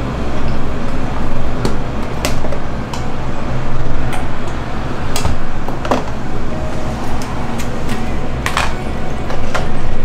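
Scattered sharp clicks and knocks of plastic cups and a squeeze tube being handled on a steel counter, over a steady low hum.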